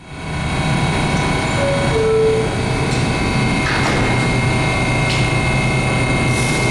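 R188 subway train running, a steady rail and motor noise carrying several steady electric tones. The sound fades in at the start, and a short tone sounds about two seconds in.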